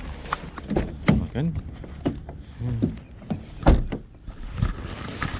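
A single loud thump about three and a half seconds in, followed by a lighter knock about a second later, between a few spoken words.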